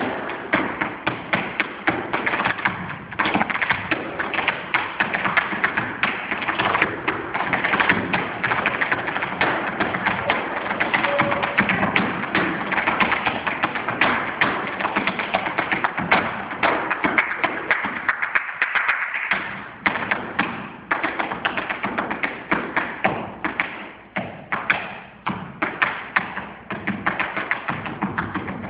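Tap shoes striking a stage floor in a fast, dense solo tap rhythm, with a brief lull about two-thirds of the way through, after which the strikes come more spaced out.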